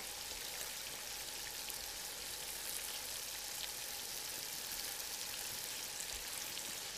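Salmon fillets and halved onions sizzling steadily in hot oil in a pan, with a fine crackle of spattering fat.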